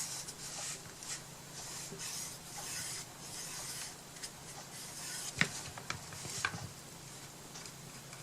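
Paintbrush stroking paint along the border of a wooden box: soft, repeated scratchy swishes of the bristles on wood, with two light knocks about five and a half and six and a half seconds in.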